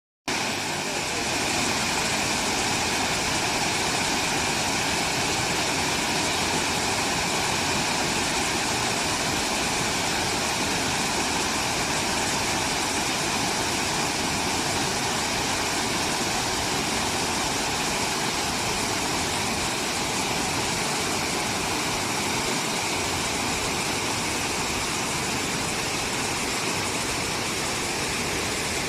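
Waterfall rushing: a steady, unbroken roar of falling water at an even level.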